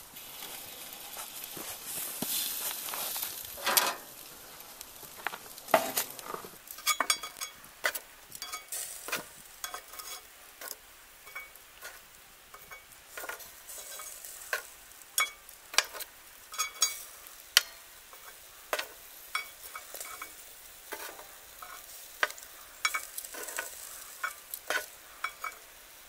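Metal tongs setting charcoal briquettes one by one onto the bottom of an upturned cast-iron camp oven: irregular clicks, taps and scrapes of metal and charcoal on iron, after a few seconds of rustling at the start.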